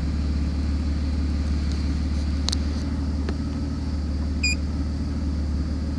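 BMW 330's 3.0-litre inline-six idling with a steady low rumble; the engine has a random misfire (code P0300) that the mechanic blames on vacuum leaks, with fuel trims running lean. A short electronic beep sounds about halfway through.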